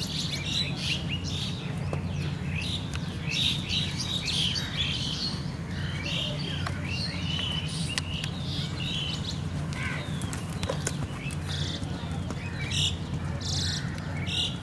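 Many small birds chirping and calling in quick, overlapping phrases, over a steady low hum.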